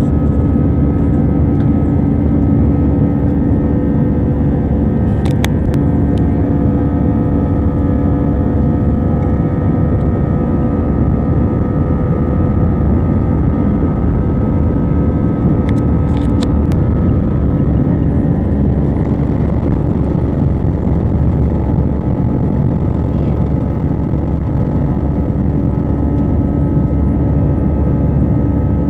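Airbus A320 jet engines at takeoff thrust, heard inside the cabin: a loud, steady engine noise with several steady whining fan tones through the takeoff roll and into the climb after liftoff. A few brief clicks or rattles come about 5 and 16 seconds in.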